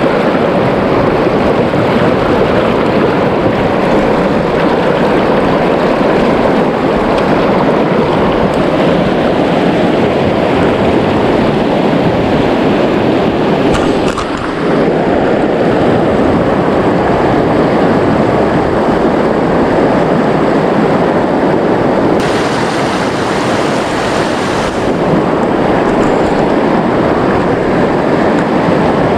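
Shallow river rapids rushing over rocks, loud and steady, heard from mid-stream close to the churning water, with a short dip about halfway through.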